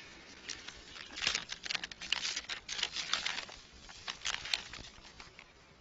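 Paper rustling and crinkling in irregular small crackles, as a folded document is unfolded and handled, for about four seconds.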